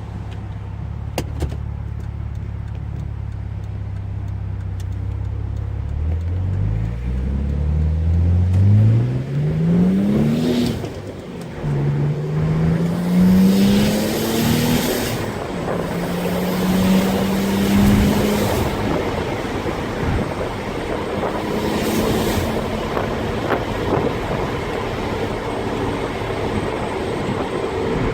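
Audi 2.7-litre twin-turbo V6 idling, then accelerating hard through first, second and third gear, its pitch climbing in each gear. Loud hissing air-sucking bursts come from the turbos under boost around the shifts. The sound began after the swap to K04 turbos, and the owner doesn't know whether it is normal. Road and wind noise follow as the car settles to cruising.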